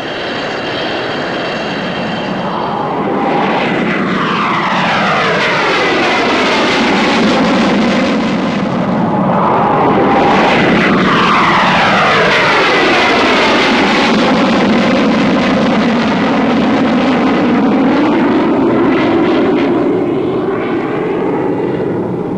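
Twin Rolls-Royce Avon turbojets of English Electric Lightning fighters running loud at take-off power. The noise builds over the first few seconds, then comes in two long passes whose pitch sweeps steadily downward as the aircraft go by.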